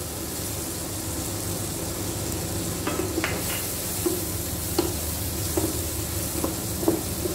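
Chopped onion sizzling in hot melted butter in a non-stick kadhai, with a steady frying hiss. A flat spatula stirs it, scraping and tapping against the pan several times in the second half.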